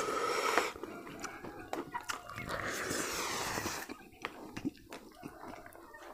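Eating biryani by hand: fingers mixing rice on a banana leaf, then chewing with scattered short mouth clicks and smacks.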